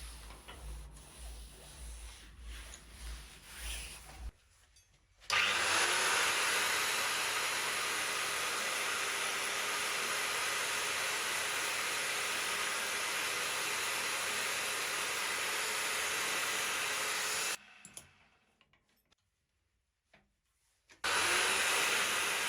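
Faint rubbing and handling noise, then a power tool working on the pliers' metal starts and runs steadily for about twelve seconds before cutting off sharply. After a short near-silent gap it starts again near the end.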